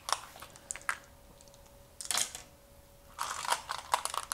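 Hard oware seeds clicking as they are dropped by hand into a carved wooden oware pit, in three clusters of quick clicks: at the start, about two seconds in, and over the last second or so.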